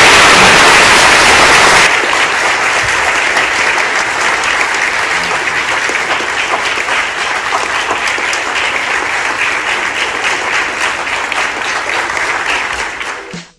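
Large audience of schoolchildren applauding, a dense steady clapping. It drops to a lower level about two seconds in and cuts off suddenly at the very end.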